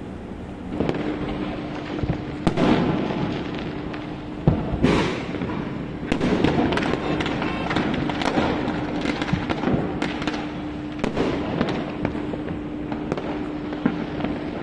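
Fireworks and firecrackers going off all over the city: a continuous rattle of crackles and bangs, with louder reports about two and a half, four and a half and eleven seconds in.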